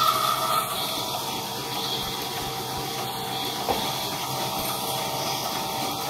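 Sawmill band saw running: the whine of the blade cutting through the log fades about half a second in, and the saw runs on with a steady hum. A single brief knock comes a little past halfway.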